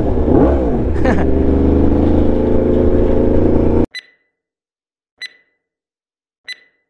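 Motorcycle engine revved up and down a couple of times, then running steadily until it cuts off abruptly about four seconds in. After that come short high electronic beeps, about one every second and a quarter, in otherwise near silence.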